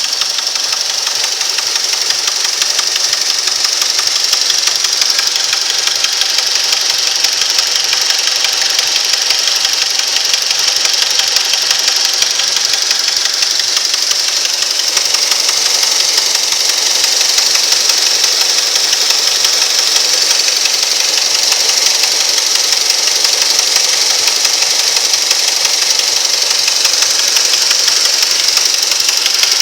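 2006 Mazda 6 engine running with a rapid, steady knock, a knock whose cause the owner cannot place.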